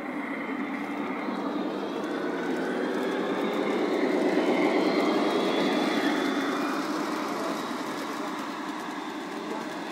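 Garden-railway model train, a diesel locomotive hauling a string of passenger coaches, running along outdoor track; the rolling noise of its wheels on the rails grows louder to a peak about halfway through and then fades as it moves away.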